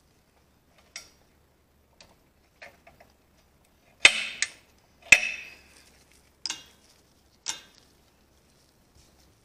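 Steel balls of a Saab 9-3 XWD propeller shaft's constant-velocity joint being pressed one by one into the joint's cage: a series of sharp metal-on-metal clicks roughly a second apart, the two loudest, a little past the middle, ringing briefly.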